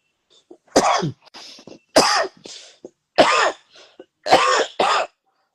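A man coughing, a fit of five hard coughs about a second apart, the last two close together.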